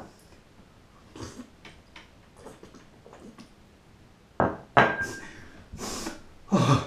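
Water being drunk upside down from a glass during a headstand: quiet sips and swallows, then from about four seconds in a run of loud, sudden breathy gasps and splutters, with the glass set down on the tile floor.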